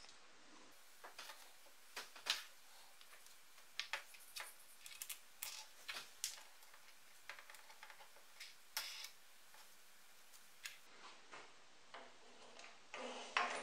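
Faint, irregular clicks and taps of a small plywood block with a steel socket-head screw being handled and set against metal and wood parts.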